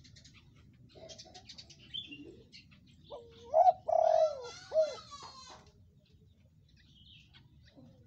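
Spotted dove cooing one phrase about three seconds in: a short rising note, a louder held coo, then a few quick rounded notes. Faint high chirps come before it and during it.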